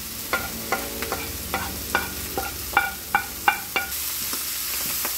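A wooden spoon taps and scrapes diced carrot and cabbage off a ceramic plate into a frying pan: a run of sharp taps that ring briefly. About four seconds in, a steady sizzle rises as the vegetables fry and are stirred in the hot pan.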